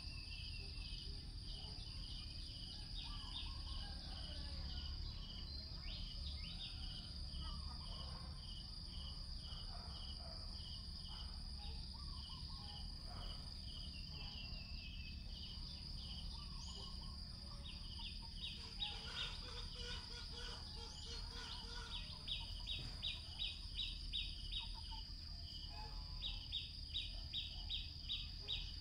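Outdoor insect chorus: a steady high-pitched whine under a repeating pulsed chirping that quickens and grows louder in the second half.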